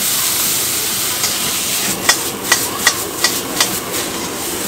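Stir-fry sizzling and hissing loudly in a hot wok just after liquid is squeezed into it. From about halfway through, a metal ladle knocks against the wok in a steady rhythm, about three strikes a second, as the food is tossed.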